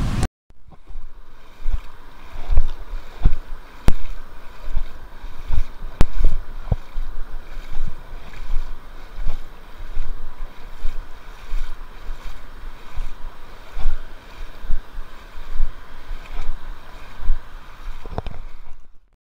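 Wind buffeting the microphone in irregular gusts, with a couple of sharp clicks about four and six seconds in.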